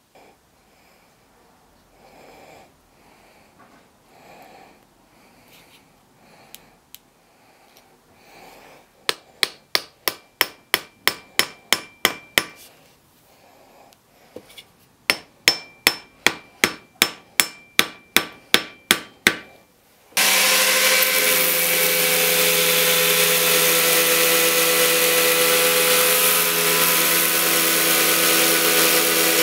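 Hammer blows driving a glued wedge into the eye of a hatchet head on its haft: two runs of sharp ringing strikes, about three to four a second, the first starting about a third of the way in. About two-thirds through, a belt grinder starts and runs steadily, sanding the protruding haft and wedge end flush with the head.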